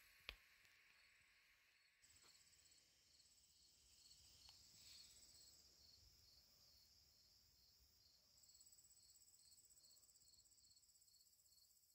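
Near silence: faint room tone with a faint high-pitched pulsing hiss and a single soft click near the start.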